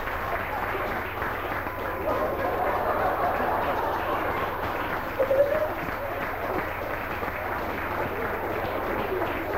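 Audience applauding steadily, with a voice briefly rising over the clapping about five seconds in.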